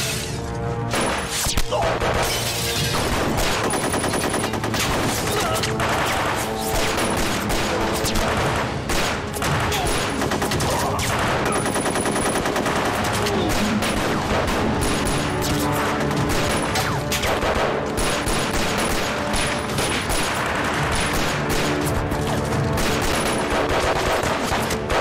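Heavy, continuous gunfire with machine-gun fire, many shots close together, over music.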